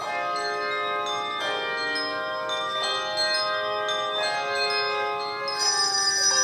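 Handbell choir playing: ringing chords of handbells, with new chords struck about every second and a half over notes still sounding, and a louder, higher chord near the end.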